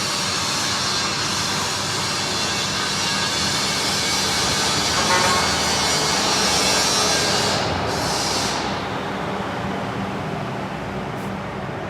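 Electric welding arc crackling and hissing steadily, with a brief break near 8 s; the arc stops about 9 s in, leaving a quieter, duller background noise.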